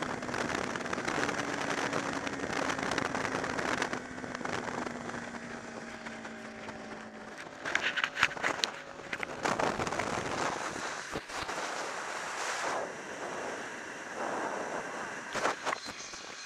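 Wind buffeting the microphone of a camera on a Honda VFR V4 motorcycle at road speed, with the engine's steady note faintly underneath in the first half. Fabric of the rider's jacket rubs and flaps over the microphone in a burst of crackles about halfway through, and briefly again near the end.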